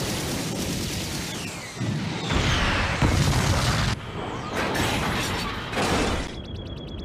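Animated mecha battle sound effects: a dense rumbling roar of booms and explosions that swells several times. Near the end it gives way to a quick run of electronic beeps from a cockpit display.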